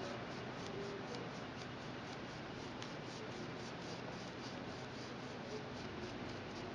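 Light, scratchy rubbing as hands work a painted 3D-printed plastic chassis part, over a steady hiss with faint rapid ticking, about five ticks a second.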